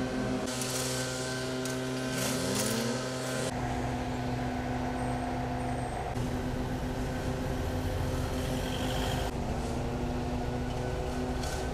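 Heavy vehicle engine running steadily, with a pitch that drops briefly about two seconds in. A loud hiss runs through the first few seconds, and the sound changes abruptly a few times.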